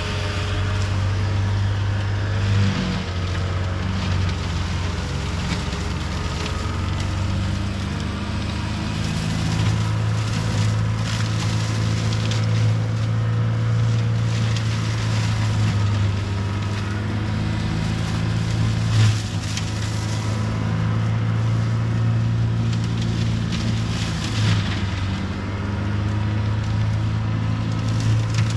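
CAT 259D3 skid steer's diesel engine running steadily at high revs, with a few brief crackles over it.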